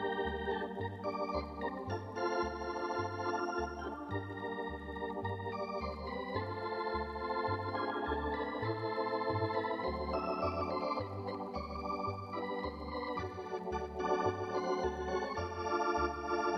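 Organ music playing a steady, upbeat tune, with a bass note pulsing about twice a second.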